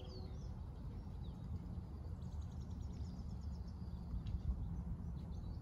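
Outdoor garden ambience: small birds chirping faintly, with short high calls and a quick trill a little over two seconds in, over a low steady rumble.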